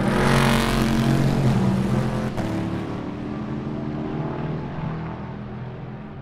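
Two GT sports-prototype-era race cars passing close at speed, their engines loudest in the first two seconds and then fading as they pull away. A single sharp pop comes about two seconds in.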